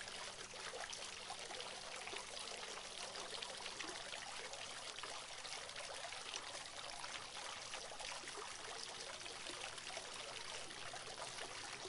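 Small streams of water from a pet water fountain's spouts trickling and splashing steadily into its basin, faint.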